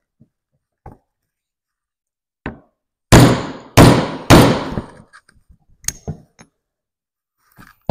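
Ball-peen hammer striking a T45 Torx bit held in the pinhole of an aluminum 4L60E accumulator housing: a light tap, then three hard metal-on-metal blows about two-thirds of a second apart, each ringing briefly, staking the aluminum around the plugged pinhole. A few light clinks follow.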